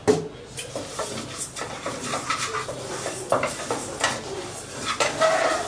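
Moong dal being dry-roasted in a pan on the stove and stirred with a wooden spatula: irregular scraping and clicking of spatula, lentils and pan. A sharp knock right at the start, as a container is set down on the stone counter.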